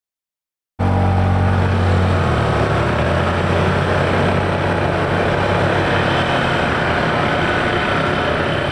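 Honda Super Cub 110's small single-cylinder engine running steadily under way, with heavy wind rush over the microphone. It cuts in abruptly about a second in, and the low engine note eases a little a couple of seconds later.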